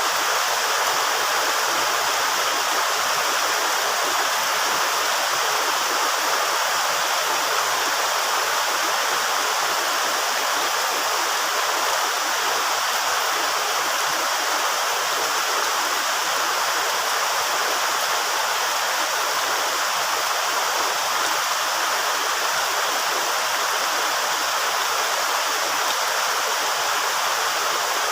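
Steady rain falling, an even hiss that holds without breaks.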